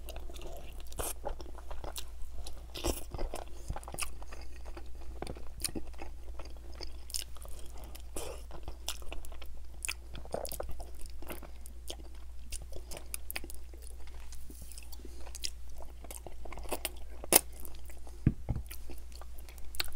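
Close-miked chewing and biting of saucy ribs dipped in cheese sauce, with many small wet mouth clicks. A sharper click comes about 17 seconds in, followed by a short low thump.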